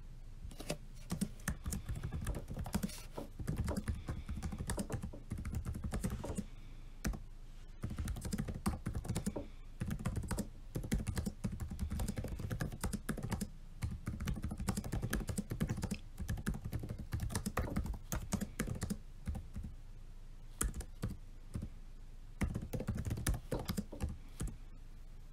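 Typing on a laptop keyboard: fast runs of key clicks broken by a few short pauses.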